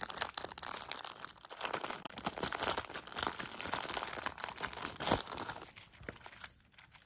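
Plastic packaging crinkling and rustling with many small clicks as a fidget toy is taken out of its wrapper, dying down about six seconds in.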